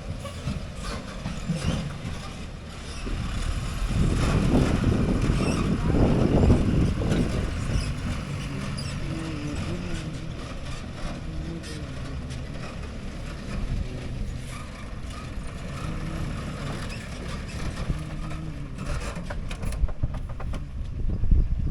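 Diesel engine of a JCB 3DX backhoe loader running under load while it digs and loads mud. It gets louder for a few seconds about four seconds in, then settles to a steady run.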